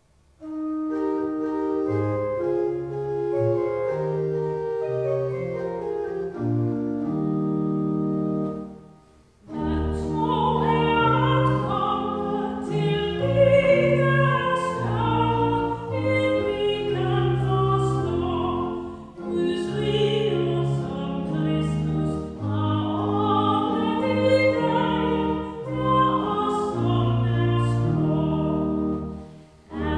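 Pipe organ playing a hymn introduction of held chords, then after a brief pause a woman begins singing a Danish hymn with vibrato, the organ accompanying her.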